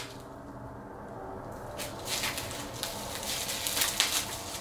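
A small cardboard product box and its plastic wrapping being handled while someone works to open the box: fairly quiet for the first second or so, then a few short rustles and scrapes.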